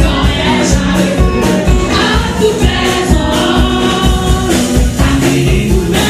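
A congregation singing a gospel worship song over loud amplified music with a steady bass beat.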